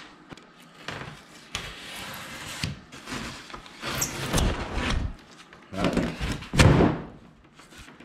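A 2-inch extruded polystyrene foam board being cut with a utility knife and broken apart along the scored line, a series of scraping and crunching noises with the loudest about six and a half seconds in.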